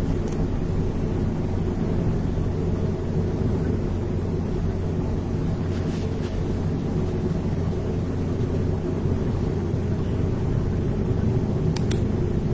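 Steady low rumble and hum of room background noise picked up through a computer's built-in microphone, with faint clicks about six and twelve seconds in.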